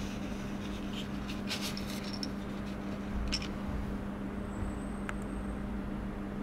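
Faint rustles and light clicks of a cardboard product card with a plastic blister being handled and turned over on a tabletop, in a cluster from about one to two seconds in and once more near the middle, over a steady hum.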